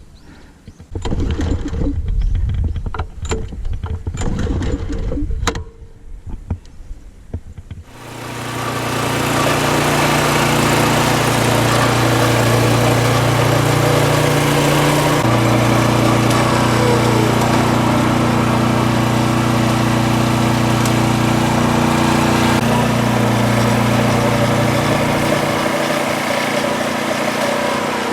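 For the first several seconds there are scuffs and knocks. Then a Kyoritsu AZ646 Wing Mower's engine comes up and runs steadily, its note shifting a couple of times.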